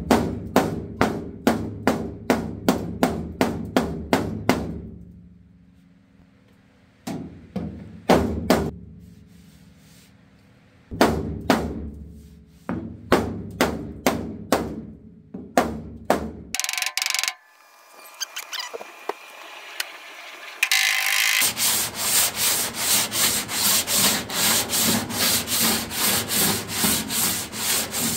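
Hammer blows on the 1948 Willys truck's dented sheet-steel roof panel, about three a second in bursts with pauses between, each blow leaving the panel ringing. After about twenty seconds the hammering gives way to hand sanding of the panel with folded sandpaper, quick rhythmic back-and-forth strokes.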